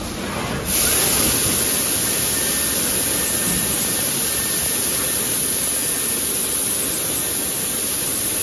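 A PP tray vacuum forming machine's air system gives a loud, steady hiss of rushing air. It starts abruptly about a second in and holds unchanged: the vacuum or forming air of the machine's cycle.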